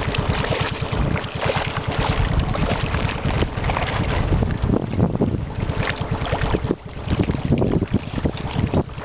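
Wind buffeting the microphone in an uneven low rumble, over water splashing and churning at the edge of a shallow pond.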